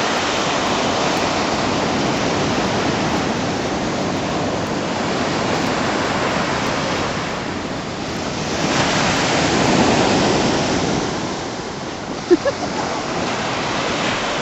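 Ocean surf washing in and out on the shore, a steady rush that swells as a wave breaks about nine seconds in, with a brief faint blip near the end.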